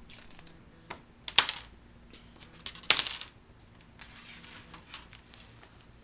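Plastic vacuum-bag film and the plastic sealing rods being handled: small clicks, then two sharp crackling snaps about a second and a half apart, with soft plastic rustling in between.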